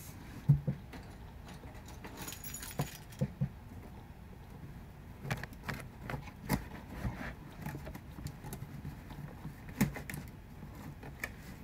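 A set of keys jangling and clicking while a key is used to slit the packing tape on a cardboard box, with irregular knocks from handling the box.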